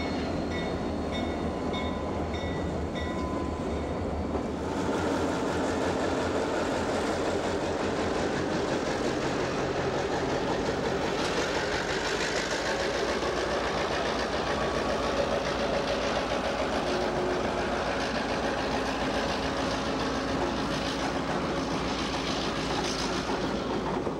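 EMD diesel road-switcher locomotives (GP40-2s and a GP9) moving slowly through a rail yard, engines running and wheels rolling on the rails. For the first few seconds a ringing tone repeats about twice a second over a low engine hum. After that the rumble grows fuller and steadier.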